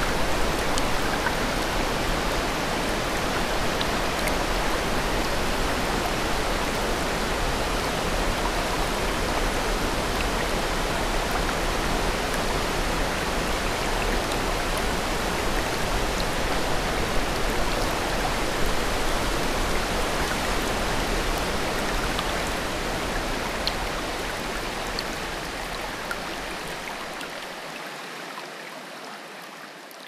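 Steady rush of falling water, like a waterfall, fading out over the last several seconds.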